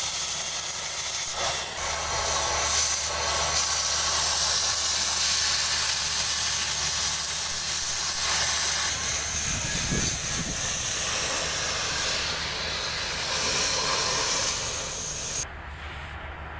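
Oxy-fuel cutting torch hissing steadily as its oxygen jet cuts through 20 mm steel plate. About a second before the end the hiss drops suddenly to a quieter, duller rush.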